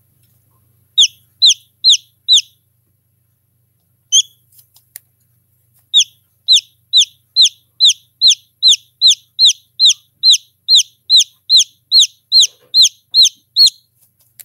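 A chick peeping from a pipped egg during hatching: short, high calls, each falling in pitch. Four come about a second in, one more after a pause, then a steady run of about two a second that stops just before the end.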